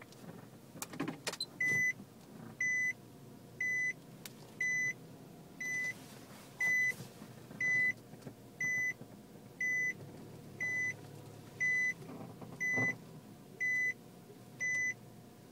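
A car's cabin warning beeper sounding a single high beep about once a second, starting about two seconds in. Under it, a few short creaking knocks from the front of a Nissan Lafesta near the start and again near the end: the front-end noise on a diagonal climb onto a slope that a dealer linked to a recall.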